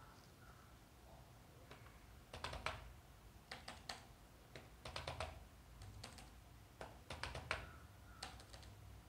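Faint typing on a computer keyboard: short bursts of a few quick keystrokes with pauses between, the first burst about two and a half seconds in.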